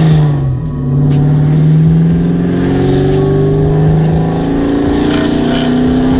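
A vehicle engine pulling under load: its pitch drops just under a second in, as at a gear change, then climbs slowly for several seconds.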